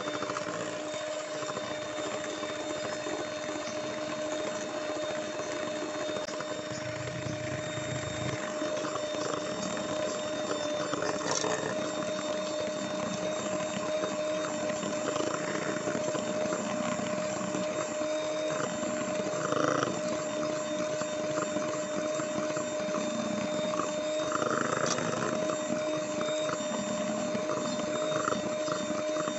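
Electric hand mixer running steadily at its highest speed, a constant motor whine, its wire beaters whisking egg and sugar batter in a stainless steel bowl until it is thick and pale.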